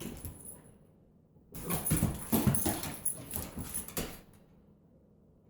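A large young dog making rough, noisy vocal sounds for about two and a half seconds, starting about a second and a half in.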